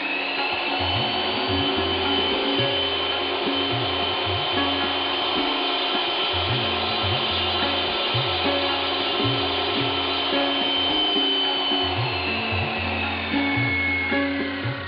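Electric cut-off saw with a circular blade grinding steadily through a cylindrical rock core, a continuous abrasive hiss with a high whine in it; the whine drops in pitch near the end.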